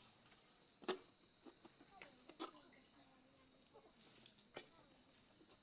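Faint, steady high-pitched chirring of night insects, with a few brief faint clicks.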